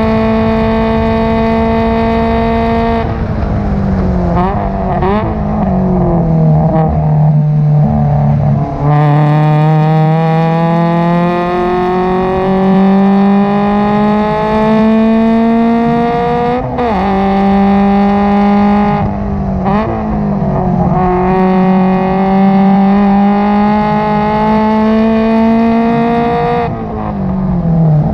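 Subaru BRZ's flat-four race engine, heard from inside the cockpit through an aftermarket header and cat-back exhaust. It holds a steady high-rpm note at full throttle, then falls away under braking with sharp throttle-blip downshifts, and pulls again with a long rising wail. It lifts briefly twice with more blips around the middle before rising once more and dropping off near the end.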